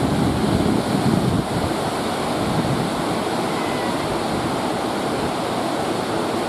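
Steady rushing of a whitewater river, with wind buffeting the microphone, heavier in the first second and a half.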